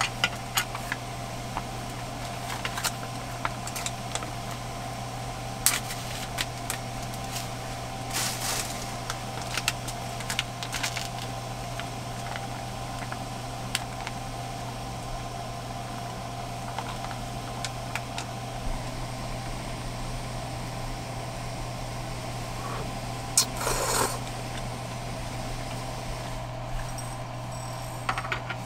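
Cooking at a small canister gas stove over a steady hum: light clicks of utensils against a foil pan, and a plastic food packet rustling twice as it is opened and emptied into the simmering pot.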